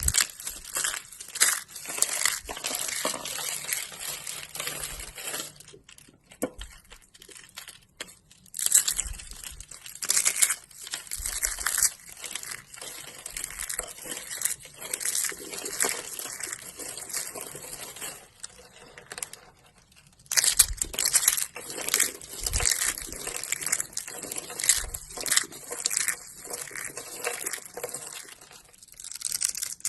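Knife cutting and carving dry soap: dense crunchy crackling and scraping, with short pauses about six seconds in and again around twenty seconds.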